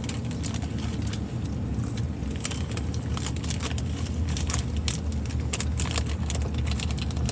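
Road noise inside a moving car: a steady low rumble, with frequent small clicks and light rattles over it.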